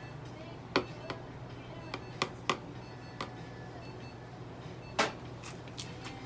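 Scattered sharp clicks and knocks, about seven, the loudest near the start and about five seconds in, from hands working with the cat and the therapy lamp on a steel exam table. A steady low electrical hum runs underneath.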